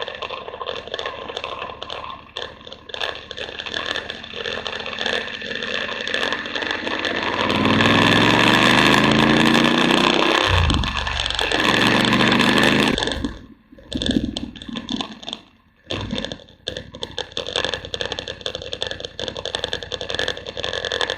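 BMW adventure motorcycle ploughing through flood water, with steady engine noise and a constant rattle. From about seven seconds in, the engine rises in pitch under the throttle with a loud rush of spraying water. It drops away sharply about thirteen seconds in, then the engine and rattling return.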